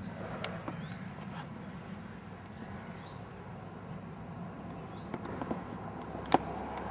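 A small bird singing a short high phrase over and over, about every two seconds, over a low steady rumble, with one sharp click about six seconds in.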